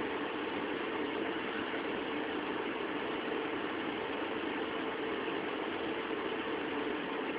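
Steady hum and hiss of running electronics-bench equipment, even and unchanging, with a low tone standing out in it.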